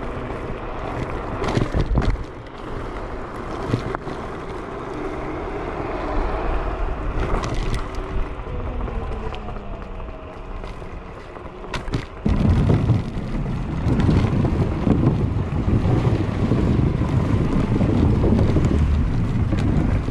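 Wind buffeting the microphone and tyre noise of a dual-motor electric scooter rolling at speed over rough pavement, with occasional sharp knocks from bumps. About twelve seconds in, the low rumble grows louder and stays up.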